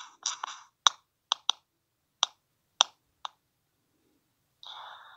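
Six sharp, irregularly spaced clicks or taps, with a short scratchy rustle at the start and another near the end.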